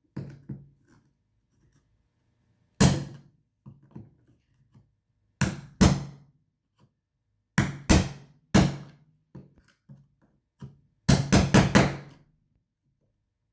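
Chisel being struck to cut out the sharp inside corners of a routed inlay pocket in hardwood: sharp knocks, single or in pairs every second or two, then a quick run of about five strikes near the end.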